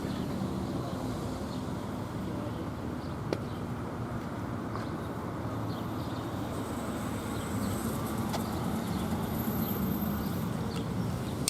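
Outdoor street ambience: a steady low rumble of traffic, with a few faint, short bird chirps and one brief click about three seconds in.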